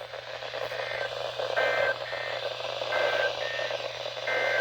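NOAA Weather Radio SAME digital data bursts: short, buzzy two-tone screeches switching between two pitches, the end-of-message code sent after a severe thunderstorm warning. Beneath them are a steady low hum and radio static.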